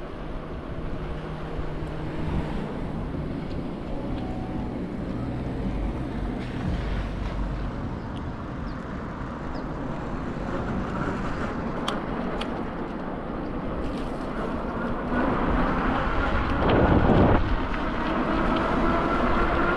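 City street traffic noise. A vehicle passes close about 17 seconds in, and a faint rising whine comes in near the end.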